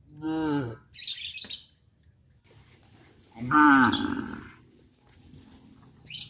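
A cow mooing twice: a short call at the start and a louder, longer one about three and a half seconds in. Small birds chirp between the calls and again at the end.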